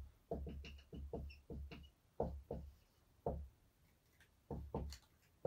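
Writing on a board: a run of short, irregular taps and knocks as the pen or chalk strikes the board.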